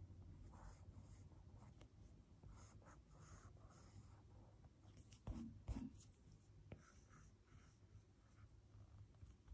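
Faint scratching and light tapping of a stylus tip drawing strokes on an iPad's glass screen, in short repeated strokes. Two soft thumps come a little past halfway.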